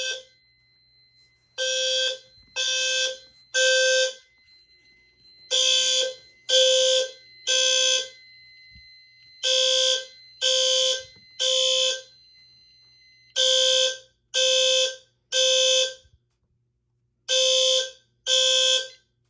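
Fire alarm horn sounding the temporal-three evacuation pattern: three half-second blasts about a second apart, then a pause, repeating. It cuts off after two blasts of the last round as the alarm is silenced.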